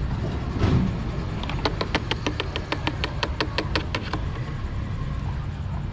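Engine oil draining from a bottle through a funnel into a scooter engine's oil filler, under a steady low rumble. In the middle comes a fast, even run of sharp clicks, about six a second for some two and a half seconds.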